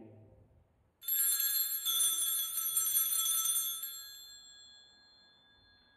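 Sanctus bells shaken for about three seconds, then ringing out and slowly fading. They are rung at the elevation of the chalice, marking the consecration of the wine.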